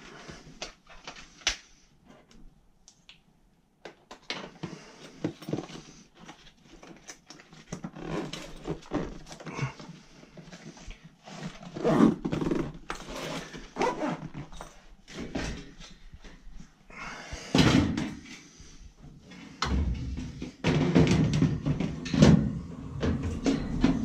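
Tools and a soft tool bag being handled, with irregular clunks, knocks and rustling. About twenty seconds in, a louder steady low rumble starts up and keeps going.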